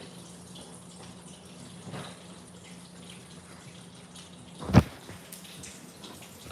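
A single sharp knock of kitchenware, like a dish or utensil set down, about three-quarters of the way through, with a few faint ticks over a low steady hum.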